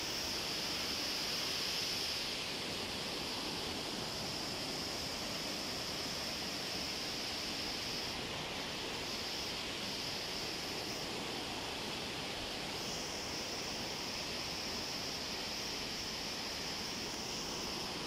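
Steady rushing of a whitewater river and waterfall, an even hiss without breaks.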